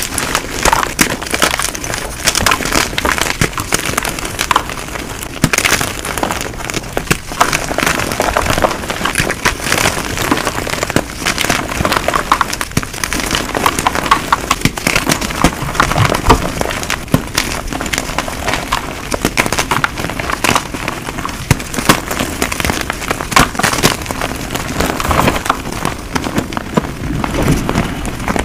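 Blocks of gym chalk, plain and dyed, being crushed and crumbled in a dense, unbroken run of dry crunches and crackles, sped up to double speed.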